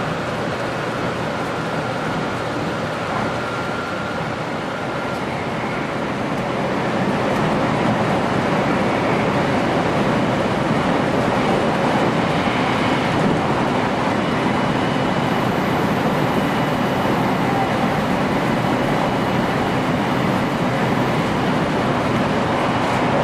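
Running noise inside the cab of a 500 series Shinkansen train as it leaves a station and picks up speed: a steady rushing hum that grows louder about seven seconds in, with faint high whining tones over it.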